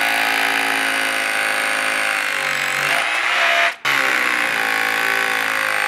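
DeWalt DCH263 18 V cordless SDS-plus rotary hammer hammer-drilling down into a concrete block. It runs steadily, stops briefly just before four seconds in, then starts again.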